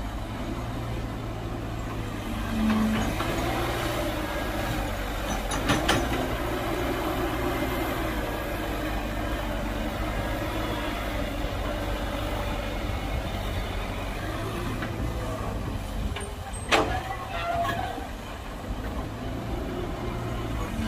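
Heavy diesel engine of earth-moving machinery running steadily, with a couple of sharp knocks, the loudest about 17 seconds in.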